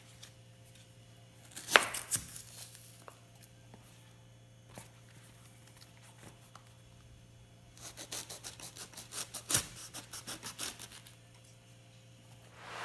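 Kitchen knife cutting saba bananas off the bunch's crown on a bamboo cutting board. There is a sharp knock about two seconds in and a few scattered taps, then a quick run of short cuts and taps against the board in the second half, about four or five a second. A low steady hum runs underneath.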